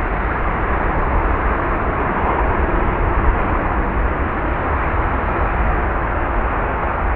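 Airbus A320-214 jet airliner's CFM56 engines: loud, steady jet noise with a deep rumble underneath, slowly fading.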